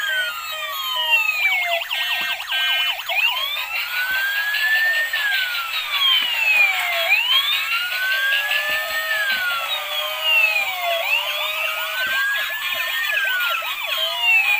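Electronic siren sounds from several battery-operated toy emergency vehicles playing at once through tiny tinny speakers. Overlapping wails rise and fall every two to three seconds, with faster warbling siren patterns mixed in.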